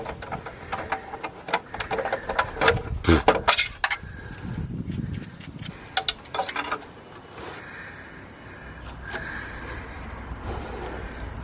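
Metal hand tools clicking and clinking in quick runs of sharp strikes through the first four seconds, with a few more about six seconds in, as tools are worked at the oil filter.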